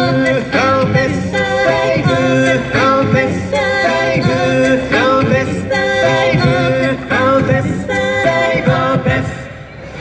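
A cappella vocal group singing in close harmony, voices holding sustained chords that change every second or so, with a short dip just before the end.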